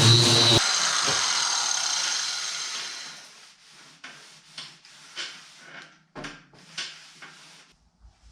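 A metal shop power tool running with a low hum and a high whine, switched off about half a second in, its sound fading away over the next three seconds as it winds down. Then come several light knocks and clatters of metal being handled.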